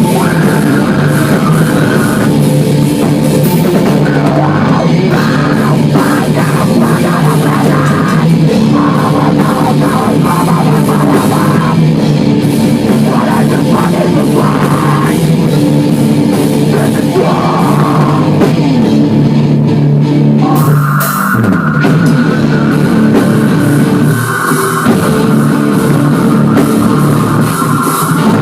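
Loud heavy-metal rock music with a drum kit and guitars playing.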